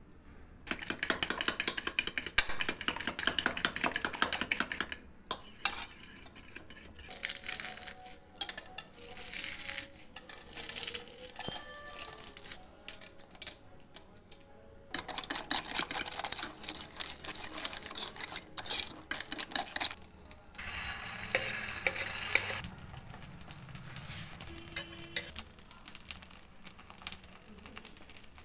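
Egg being beaten with a spoon in a steel bowl, a fast run of clinking and scraping, then crushed potato chips and egg sizzling in oil in a frying pan, with some clatter of utensils.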